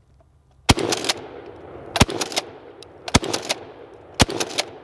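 A Mossberg 500 12-gauge pump-action shotgun in a bullpup stock fires four shots, a little over a second apart, with the pump worked between shots.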